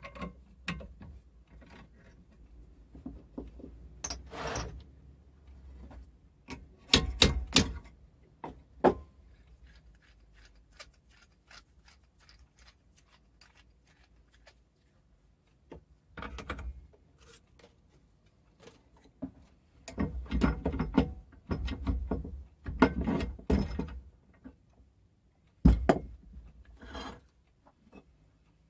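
Intermittent metallic clunks, knocks and rattles of lathe fittings being handled, with quiet gaps between them: a drill bit is drawn out and put aside, and the cast-iron tool-rest arm is swung and clamped into position.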